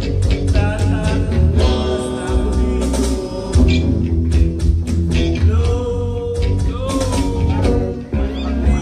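Live band playing a song: a singer on the microphone, backed by electric guitar, with a steady beat.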